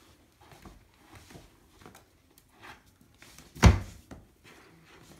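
A Hungarian vizsla nosing through a fleece snuffle mat for hidden treats, with faint, scattered rustling and sniffing. A single sharp thump about three and a half seconds in is the loudest sound.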